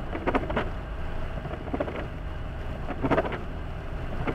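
Car cabin noise while driving at about 75 km/h on a wet road: a steady low rumble of engine and tyres, with a few short louder sounds over it about half a second in, near two seconds and around three seconds in.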